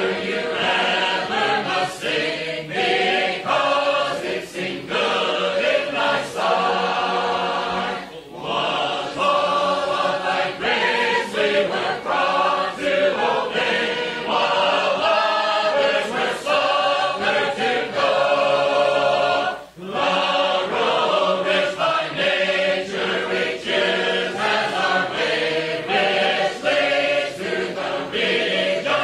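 A choir singing a hymn unaccompanied, with brief pauses between lines about eight and twenty seconds in.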